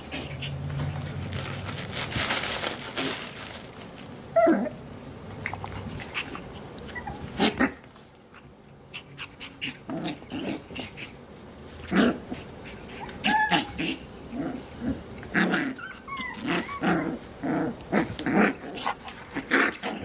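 Young Coton de Tulear puppies play-fighting: short growls and yips with scuffling, a few at first, then coming thick and fast in the second half.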